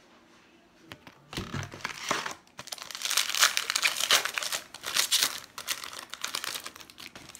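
Foil wrapper of a trading card pack being torn open and crinkled in the hands. The dense crackling starts about a second in, is loudest in the middle and stops just before the end.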